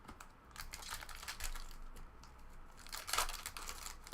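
Trading cards and their packaging being handled: a run of short rustles and crinkles, with a louder cluster about three seconds in.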